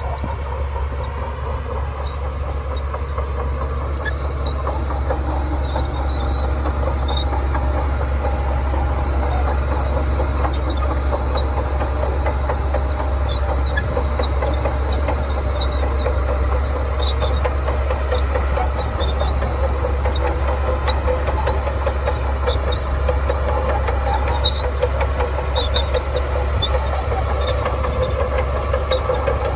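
Shantui DH17C2 bulldozer's diesel engine running steadily under work, with a continuous metallic rattle and clatter from the machine and its tracks. It grows a little louder about five seconds in.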